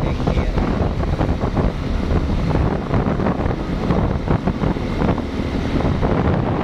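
Wind buffeting the microphone at riding speed, over the steady engine and tyre noise of a motorbike moving along a paved road.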